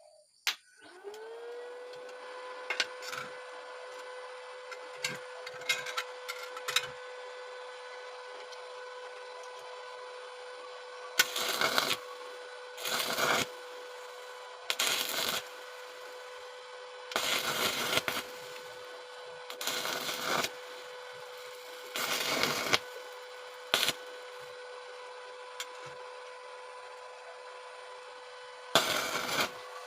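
An electric stick (arc) welder switched on with a click, its hum gliding up in pitch to a steady tone; a few light taps follow, then about eight short bursts of arc crackle, each about a second long: quick tack welds on very thin metal with a 2.6 mm electrode.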